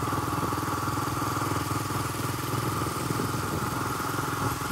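Motorcycle engine running steadily while riding along, an even stream of firing pulses with no revving or change in pitch.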